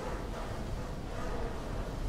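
Storm wind blowing steadily with a low rumble underneath.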